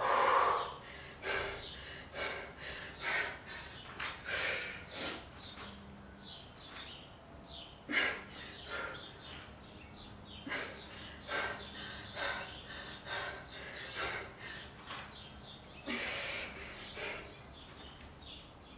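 A woman breathing hard from exertion during a dumbbell exercise. Her short, sharp exhales come about once a second.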